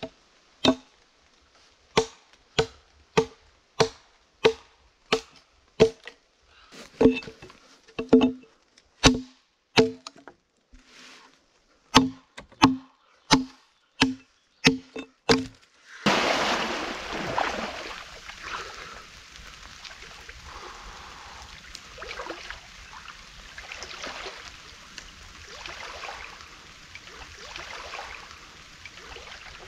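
An axe chopping into a standing wooden pole: about twenty sharp blows, a little faster than one a second, with a brief pause about ten seconds in. About sixteen seconds in it gives way abruptly to water splashing and sloshing as a person swims, swelling with each stroke.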